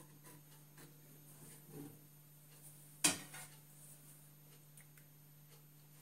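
Kitchenware being handled: one sharp click about three seconds in and a few faint ticks, over a low steady hum.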